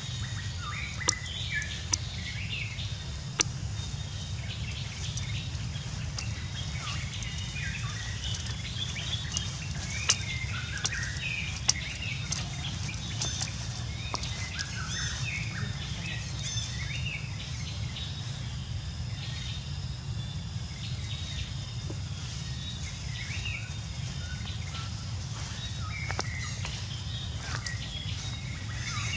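Outdoor ambience: many short, high chirping calls scattered throughout over a steady low rumble, with a few sharp clicks.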